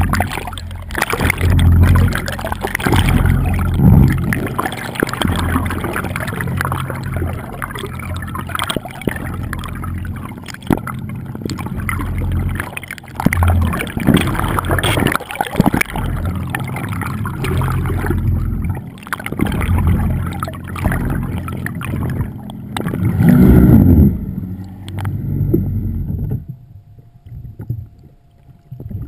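Water sloshing and gurgling around a camera held underwater, in uneven surges, dropping much quieter about three seconds before the end.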